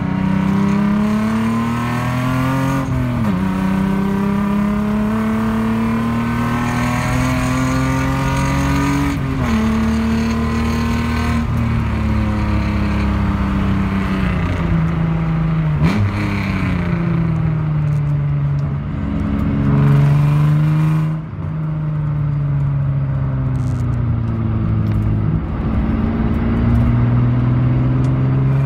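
Naturally aspirated 3.0 L V6 (VG30DE) of a 1991 Nissan 300ZX, heard from inside the car under hard acceleration. The engine pitch climbs steadily and drops sharply at upshifts about 3 and 9 seconds in. From about 16 seconds the pitch falls as the car slows, then it climbs again as the car accelerates near the end.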